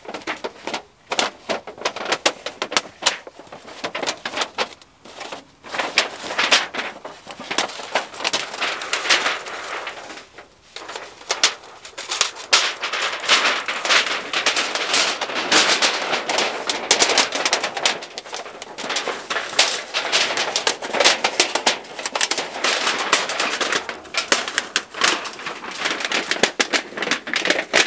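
Thin sheet-metal stove chimney being rolled up by hand into a pipe: the metal sheet crinkles and crackles with a dense run of small clicks and rustles.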